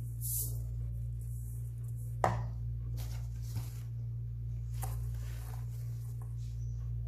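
Metal mesh sieve and powdery blue-dyed baking soda in a steel bowl: one sharp knock a little over two seconds in, the loudest sound, then a few softer taps and light crumbling as powder is tipped from a tub into the sieve. A steady low hum runs underneath.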